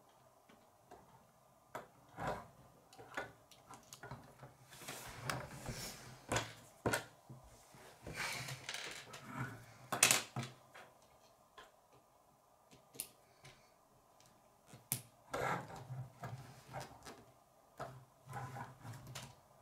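Plastic K'nex pieces clicking, knocking and rattling on a wooden tabletop as they are handled and fitted together, with the loudest knock about ten seconds in.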